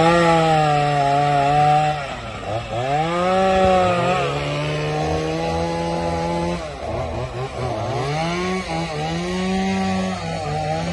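Two-stroke chainsaw cutting a downed tree, revved to full speed and dropping back several times. The engine note dips and climbs again about two seconds in, again past the middle, and a few times near the end.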